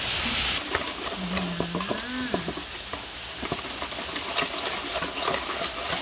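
Metal spoon stirring dried chillies in a wet dressing in a stainless-steel bowl: many small irregular clicks, scrapes and wet swishes. A steady hiss cuts off about half a second in, and a short hummed voice sounds around a second in.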